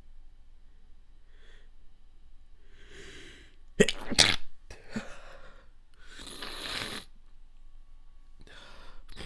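A person's wet, stifled sneeze. A breath is drawn in, then a sharp, held-back double burst comes a little under four seconds in. Noisy breathing follows, with another breath near the end.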